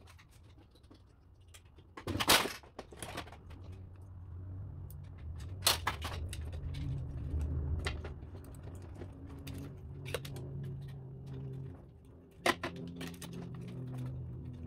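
Sharp clicks and knocks from handling plastic and metal photocopier parts during disassembly, with a brief rustling rush about two seconds in and a low steady hum underneath.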